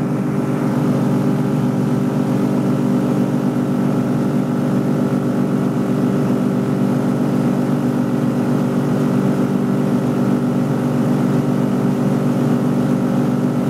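Engine and propeller of an Aliferrari Tucano ultralight aircraft in flight, heard from inside the cockpit: a loud, steady, even drone.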